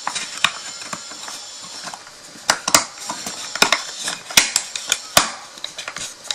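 Thin wooden box pieces clicking and knocking against each other as they are fitted and snapped together by hand: a string of sharp clacks, about half a dozen loud ones among lighter ticks.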